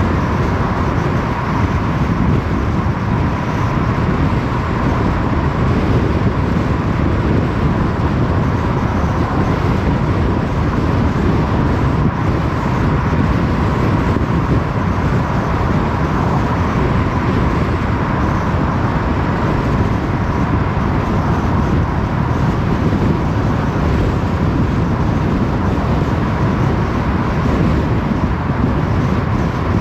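Car driving along a road: steady road and engine noise that does not change, with a faint steady whine.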